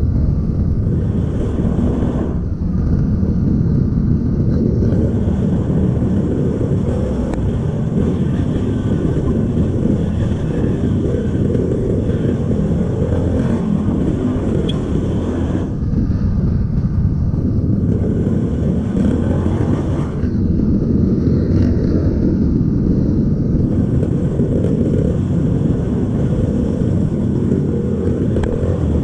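Single-cylinder engine of a Kawasaki KLX trail bike with its stock exhaust, running steadily while being ridden off-road. The upper part of the sound drops back and returns a few times.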